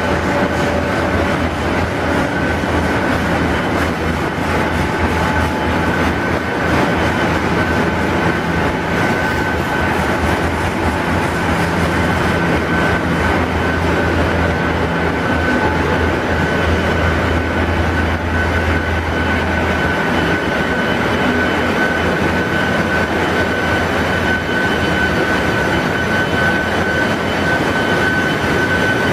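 Ship's engine room machinery running: a loud, steady mechanical drone with a constant high whine over a low hum.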